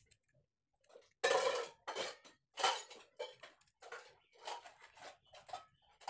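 A small metal tube scraping caked dirt and rust from the top of a Hero Splendor motorcycle's front fork leg, metal grating on metal. A run of short scraping strokes starts about a second in, the first few loudest, then lighter ones follow about every half second.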